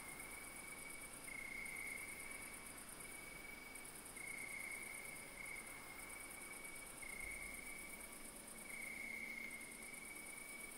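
Night insect chorus of crickets: a steady high trill, with a higher, rapidly pulsing buzz that comes and goes in spells of a second or two.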